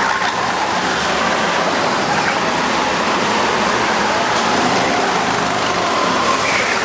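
Go-kart engines running as karts drive through a corner and pass, a dense steady noise throughout, with an engine's pitch gliding up as a kart comes by near the start and again near the end.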